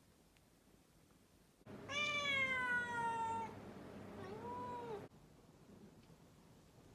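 A domestic cat meowing twice: a long meow that sinks slightly in pitch, then a shorter, quieter meow that rises and falls.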